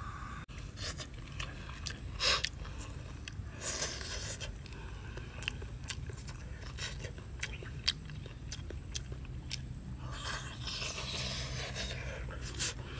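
Someone eating: wooden chopsticks clicking and scraping against a coconut-shell bowl, with chewing.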